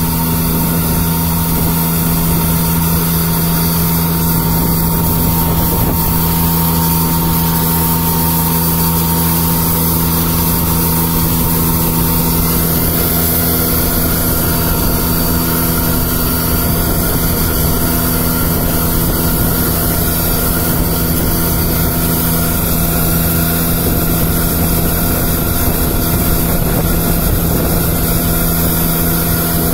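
Ranger MN-F2000 diesel vacuum street sweeper running at a constant engine speed while sweeping: a steady, unchanging engine and vacuum-system drone at one pitch, with a noisy rush over it.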